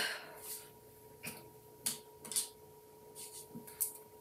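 Faint, steady hum at one pitch in a small room, with a few soft clicks and short noises, the sharpest about two seconds in.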